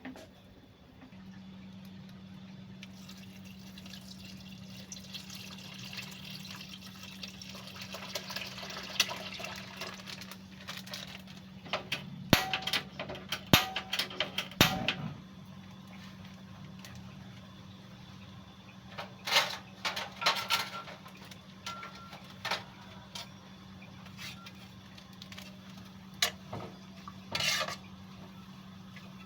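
Kitchen work sounds: water running and splashing for several seconds, then scattered clinks and knocks of utensils against pots and dishes, over a steady low hum.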